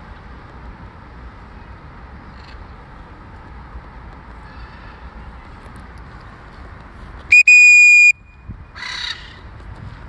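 A single loud, steady whistle blast lasting under a second, about seven seconds in, followed a moment later by a short harsh squawk from a macaw, over steady outdoor background noise.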